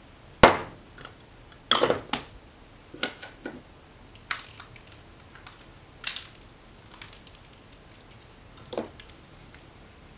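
Kitchen handling sounds while raw turkey wings are being seasoned on a plastic tray: one sharp knock about half a second in, followed by several short, irregular clatters and rustles.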